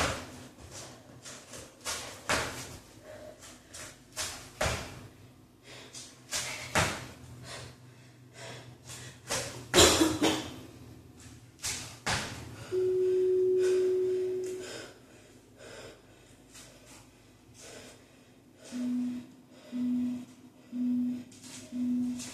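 Sneakered feet landing and stamping on a wooden floor in an irregular rhythm during jumping cardio moves. Then electronic timer beeps: one long beep, and near the end four short, lower beeps about a second apart, counting down to the next interval.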